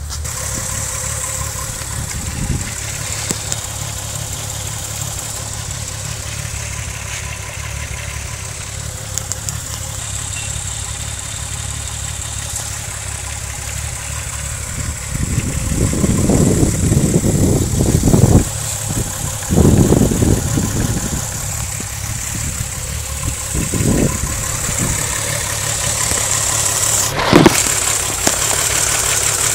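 VW 12-valve VR6 engine idling rough and shaking with a misfire, which the owner logs mainly on cylinders 2, 3 and 6 (mostly 3). A steady low running note, with a few louder surges past the middle and one sharp click near the end.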